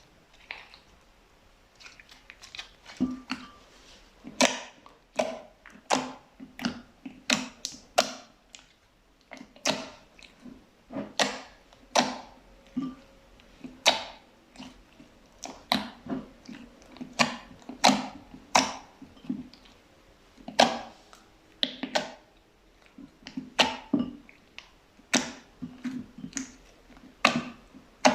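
Fluffy slime being pressed, giving a steady series of sharp pops and crackles, about one and a half a second, starting about two seconds in.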